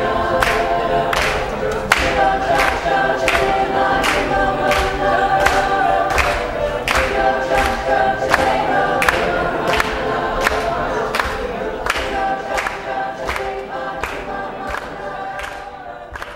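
A group singing together while clapping in a steady beat, about three claps every two seconds. The singing and clapping fade near the end.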